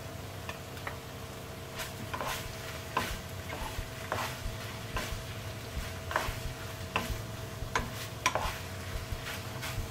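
Wooden spoon stirring chopped fresh tomato into browned minced beef in a non-stick pan, with irregular knocks and scrapes of the spoon against the pan over a light sizzle and a steady low hum.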